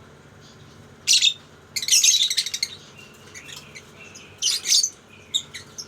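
Lovebirds calling in a series of high-pitched chirping bursts: one about a second in, a longer chattering run around two seconds in, another about four and a half seconds in, and a few short chirps near the end.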